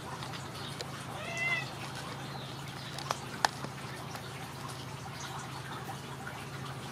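A Ragdoll kitten gives one short meow about a second in. Two sharp clicks follow a couple of seconds later, the second the loudest sound.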